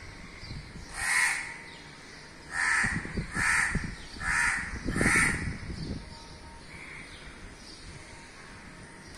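A crow cawing five times, short harsh calls spaced under a second apart, with a low rumble under the middle calls.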